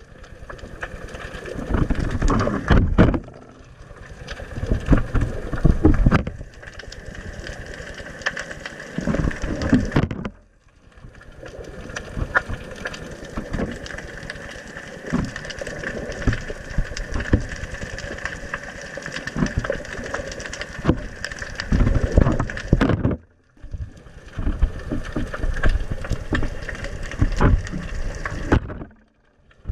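Water surging around an underwater camera, with irregular clicks and crackles, in several clips that break off with short silences.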